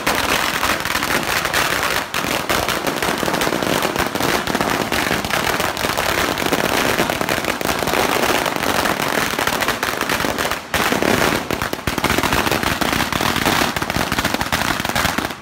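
A long string of firecrackers going off in a loud, continuous rapid crackle of pops. There is a brief dip about ten and a half seconds in, and it stops abruptly at the end.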